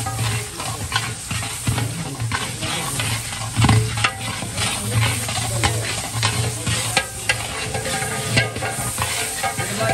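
Meat frying and sizzling in oil in a large metal deg while a long metal ladle stirs it, with frequent sharp scrapes and clicks of the ladle against the pot. The meat is at the stage of being fried until it turns white.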